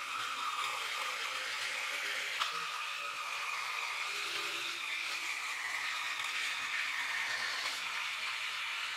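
Electric jigsaw running and cutting through a wooden panel: a steady motor whine whose pitch wavers slightly as the blade works through the wood, with a single short click about two and a half seconds in.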